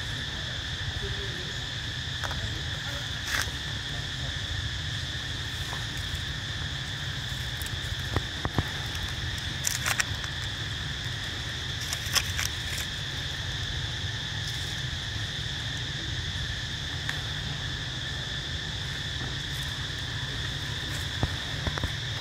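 Insects droning steadily in the forest in two high, even tones, over a low rumble. A few short sharp clicks stand out, mostly around the middle.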